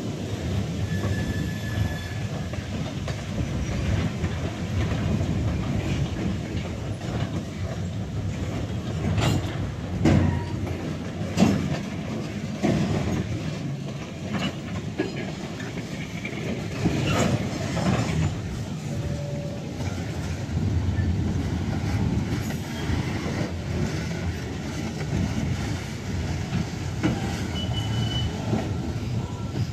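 Freight gondola cars rolling slowly along the track in a switching move, with a steady rumble of steel wheels on rail. A few brief, short wheel squeals are heard, and a cluster of sharp clanks comes through in the middle.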